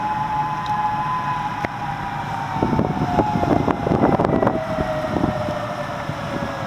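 Tsunami warning siren sounding one steady tone that slowly falls in pitch, heard from a moving car over road noise, with some rough rumbling in the middle.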